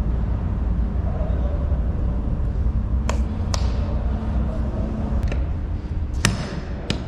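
Steady low rumble with a few sharp clicks and taps, the first about three seconds in and the loudest a little after six seconds.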